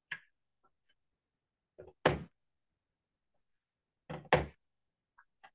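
Handheld Creative Memories corner rounder punch clacking sharply through a paper mat twice, rounding its corners, with a fainter click just before each punch.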